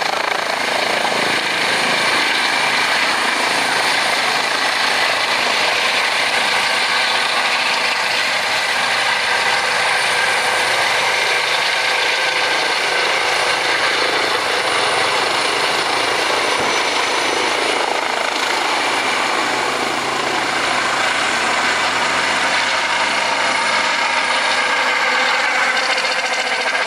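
Airbus H135-type air ambulance helicopter, with a shrouded tail fan, lifting off and climbing away. Its rotor and turbine noise is loud and steady throughout.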